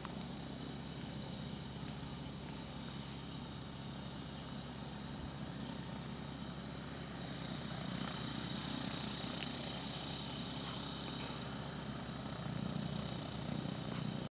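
A distant engine running steadily, with a low hum that grows a little louder from about halfway through.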